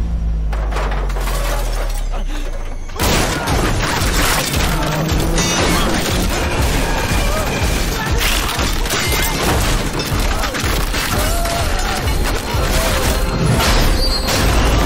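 Film sound effects of a subway car being smashed through: a deep low rumble, then about three seconds in a sudden loud crash that runs on as continuous smashing and shattering, with dramatic music throughout.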